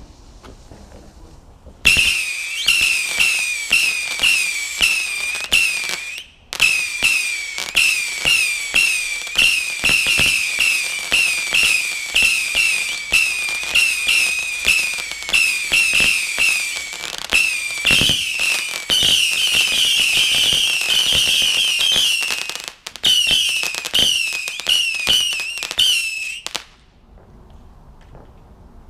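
Medusa multi-shot firework going off: a rapid string of whistling shots, about two a second, each a sharp bang with a short whistle that falls in pitch. The shots start about two seconds in, crowd together into near-continuous whistling for a few seconds late on, pause briefly twice, and stop suddenly shortly before the end.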